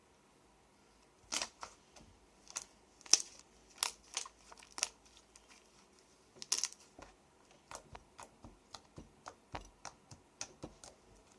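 Slime being squeezed and stretched by hand, with air pockets in it popping and clicking. There are a dozen or so sharp pops at first, then a faster run of smaller clicks, about three a second, until near the end.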